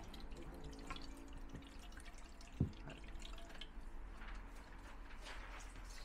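Water being poured from jugs into cups and bowls, with dripping and small clinks of steel and glass vessels. One sharp knock sounds about two and a half seconds in.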